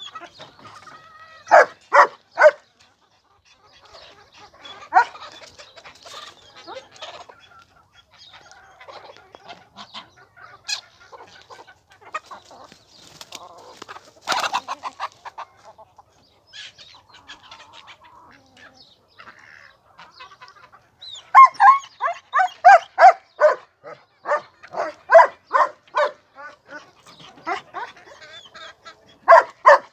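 Chickens clucking, quiet and scattered at first, then loud runs of quick repeated calls, about three to four a second, from about two-thirds of the way through.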